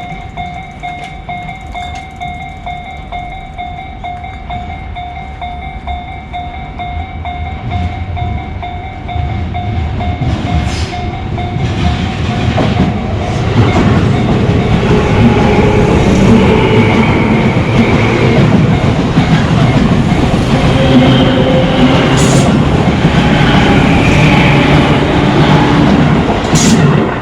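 Japanese level-crossing warning bell dinging steadily, then a Tobu Tojo Line electric train approaches and passes, its wheels clattering over the rails for the last dozen seconds and drowning out the bell. The bell is heard again as the train clears near the end.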